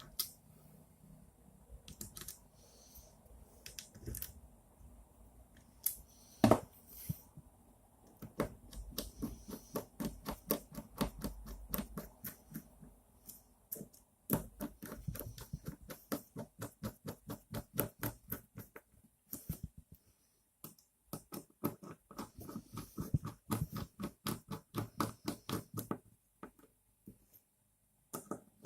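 Rapid runs of small clicks, several a second, from hand-assembling screws and nuts on the Anet A8's acrylic frame plates, with one louder knock of the parts early on.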